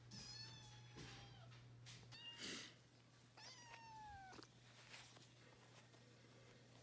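Kitten meowing: three faint, high mews. The first and last are about a second long and slide slightly down in pitch, and a shorter one falls between them.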